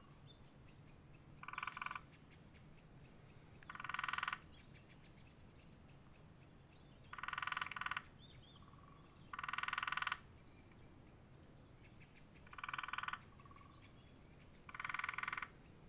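An animal calling six times, each a short trilled call of under a second, spaced about two to three seconds apart, with a few faint short chirps in between.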